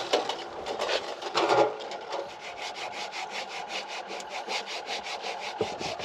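A hand rubbing quickly back and forth over a rusty metal compliance plate on an old ute's door, about five or six scraping strokes a second, wiping off grime to read it.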